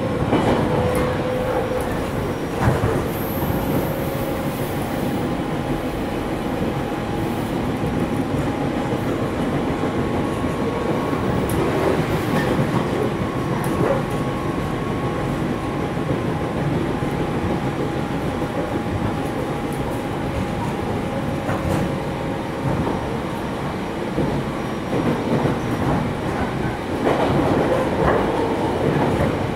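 JNR-era 413 series electric multiple unit running between stations, heard from inside the passenger car: a steady rumble of wheels on rail with occasional clicks over rail joints and a faint steady hum, growing a little louder near the end.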